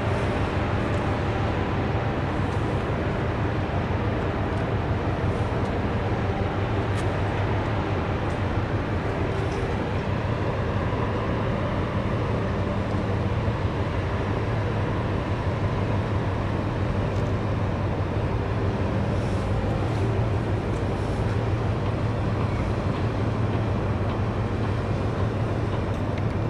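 Steady low drone of a large container ship's engines and machinery as the ship passes close by, with a constant hum and an even wash of noise.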